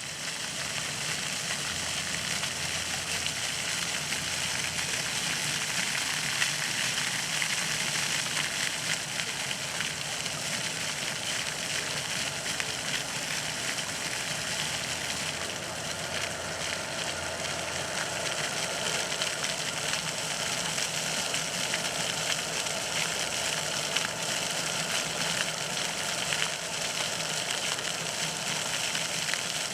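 Park water fountain splashing: a steady, even rush of falling water, with a faint low hum beneath it.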